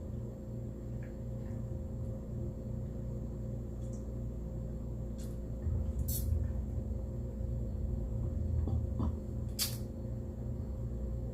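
Quiet eating: a few faint utensil clicks and soft chewing over a steady low hum.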